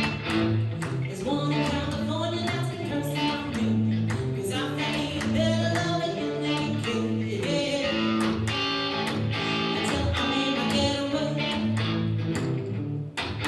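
Rock song played live on guitar with bass notes underneath, and a voice singing the melody from about a second and a half in.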